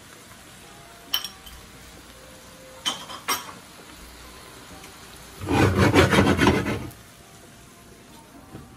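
Spinach sizzling quietly in a cast iron skillet on medium heat, with a few light clicks and, about five and a half seconds in, a louder rasping rub that lasts about a second and a half.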